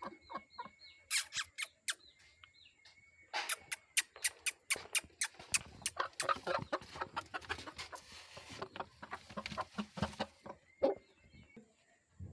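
Chickens with short clucks over a run of rapid scuffling taps and knocks, sparse at first and then dense for several seconds before thinning out.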